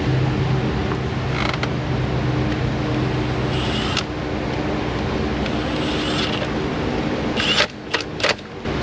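Steady hum of an idling car engine, with creaks and sharp plastic clicks from hand work on a fuse near the end.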